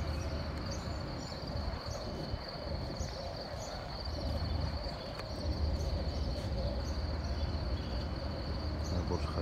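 Crickets trilling steadily at one high pitch, over a low, steady rumble.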